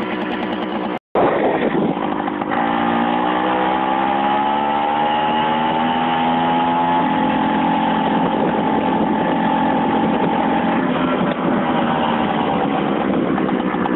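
Hercules Prima 5 moped's 50 cc two-stroke engine with a tuning exhaust and shortened header, riding: after a brief gap about a second in, the engine note climbs steadily as the moped picks up speed, holds at a steady pitch, then eases off slightly near the end.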